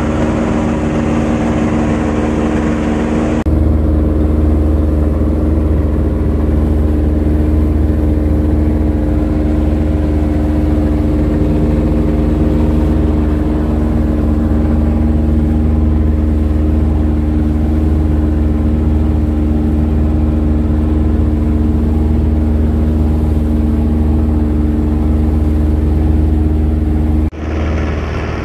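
A wooden fishing boat's engine running steadily while the boat is under way: a loud, even drone with a low hum. The sound changes abruptly about three seconds in and again near the end.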